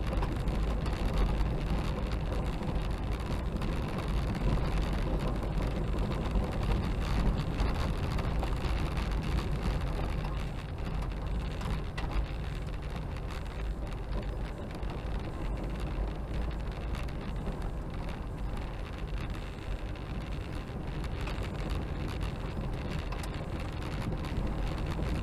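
Car driving on an unsealed dirt road, heard from inside the cabin: steady tyre and road noise over a low engine hum, easing a little about ten seconds in.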